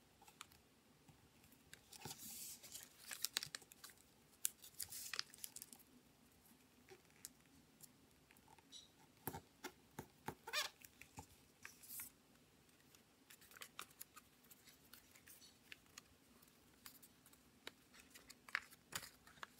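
Faint rustling and crinkling of thin printed paper being folded and pressed by hand, with scattered small crackles and taps as creases are made and the pieces are slotted together.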